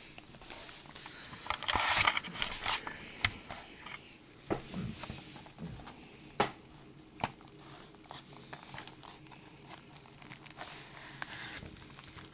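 Plastic shrink-wrap being torn and crinkled off a Blu-ray case, with scattered small clicks and taps of the plastic case being handled. The crinkling is densest about two seconds in.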